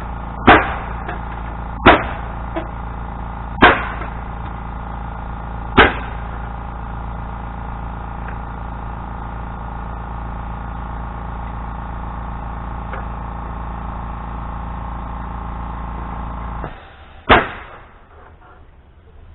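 Four sharp single strikes, one every one and a half to two seconds, over a steady machine hum. The hum cuts off near the end, and one more sharp strike follows.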